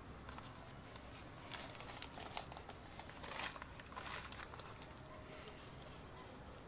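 Faint rustling and scraping of hands working crumbly soil around a lemongrass plant in a plastic pot, with scattered small clicks; the handling is busiest around the middle.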